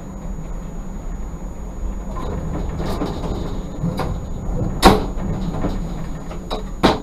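Tram running slowly over depot pointwork: a steady low drone of the running gear, broken by sharp wheel knocks as it crosses switches and rail crossings, the loudest about five seconds in and two more near the end.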